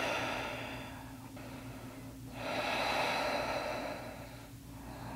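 A woman breathing deeply and audibly while holding a yoga pose: one breath at the start, then a longer one from about two seconds in, over a faint steady hum.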